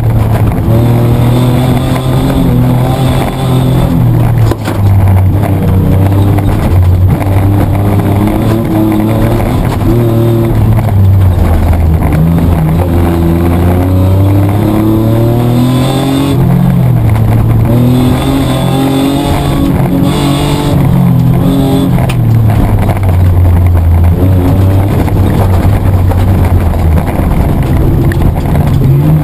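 Mitsubishi Triton 4WD's petrol engine heard from inside the cabin, driven hard: it revs up and drops back again and again through gear changes, with road and chassis noise underneath.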